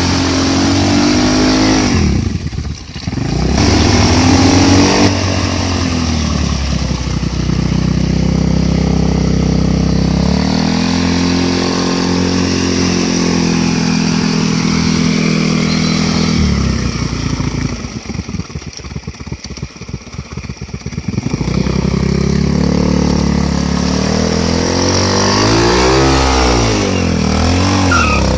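Engine of a homemade two-wheel-drive motorcycle revving hard under load as it is worked through deep mud and water. The revs drop briefly about three seconds in, fall to a low uneven idle for a few seconds past the middle, then are blipped up and down several times near the end.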